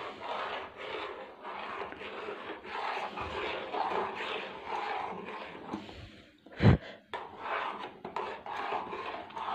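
A spoon stirring and scraping through thick milk pudding in a metal cooking pan, in repeated strokes about two a second as a lump of jaggery is worked in. One sharp knock comes about two-thirds of the way through.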